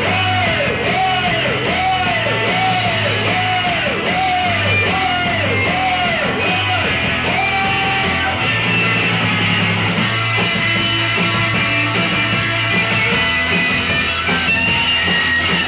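Live rock band of electric guitars, bass guitar and drums playing a song, recorded at a gig. For the first half a swooping tone repeats about twice a second, then it gives way to long held notes over the band.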